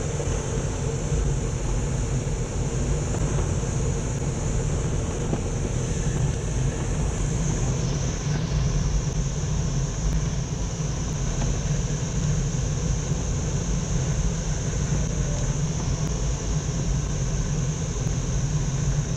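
Steady rush of air over an engineless Duo Discus glider, heard from inside the cockpit during a descending approach at about 65 mph. A high hiss in the noise dips briefly about eight seconds in.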